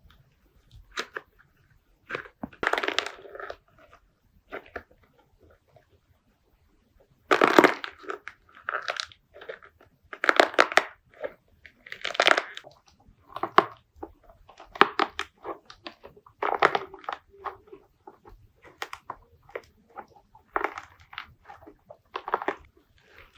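Slime being squeezed, pressed and poked by hand, giving irregular short bursts of squishing and crackling, with a pause of a couple of seconds near the first third.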